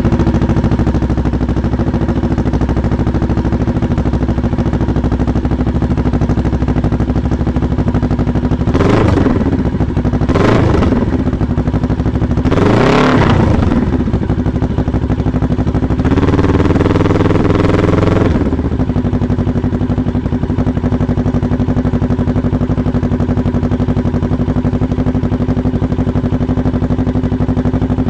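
Kawasaki Z650's parallel-twin engine running through a Toce Razor full exhaust system. It idles steadily, gets three quick throttle blips about a third of the way in (the third revving highest), is held at higher revs for about two seconds, then settles back to idle.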